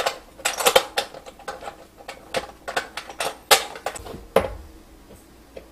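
Clicks and knocks of a plastic sink overflow inlet cover and its fittings against a stainless steel sink as it is lined up and pressed into place. About four seconds in they give way to a short low hum as a cordless drill driver starts on the cover's screw.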